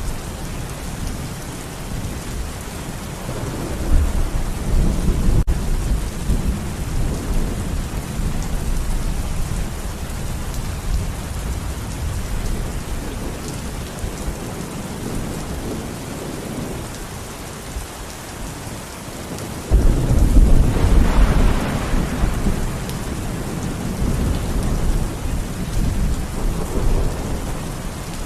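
Steady rain falling, with rolling thunder rumbling underneath. A louder peal of thunder breaks in suddenly about two-thirds of the way through and rumbles on for several seconds.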